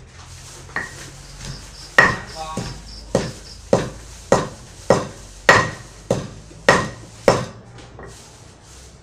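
Wooden pestle pounding papaya salad (som tam) in a large mortar: about ten steady, even strokes, a little under two a second, starting about two seconds in after a couple of lighter taps.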